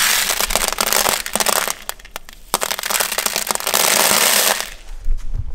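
Small yellow plastic tumbling-media cones scooped by hand and poured back into a plastic bucket: a dense pattering rattle, twice, with scattered clicks of single pieces between and after.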